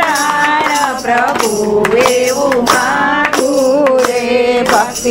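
Gujarati devotional bhajan: a voice sings the refrain in long, gliding held notes. Light percussion keeps a steady beat of about two clicks a second.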